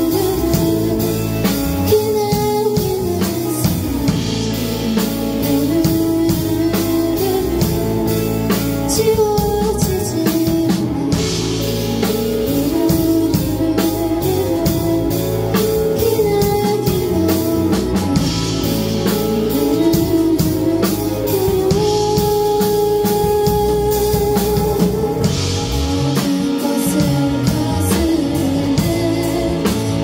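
Live band performance: a woman singing a melody into a microphone over electric guitar and a drum kit.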